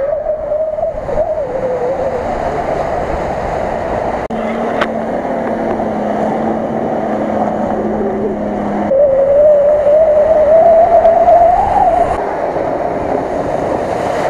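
Off-road 4x4 SUV engines revving hard under load while ploughing through deep mud and water, in several clips cut together. The engine note climbs steadily in the louder stretch about nine to twelve seconds in, then drops back.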